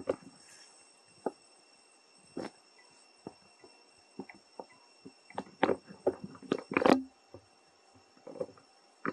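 Dry leaf litter rustling and crackling in scattered short bursts, busiest and loudest between about five and seven seconds in, over a faint steady high-pitched insect drone.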